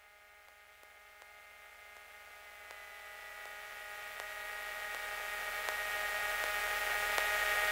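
A steady electrical hum with several steady tones and a faint buzz, growing smoothly louder.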